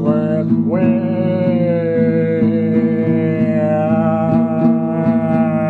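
Music: a long held note that slides up into pitch about a second in, over a steady low drone and a quick, even plucked rhythm.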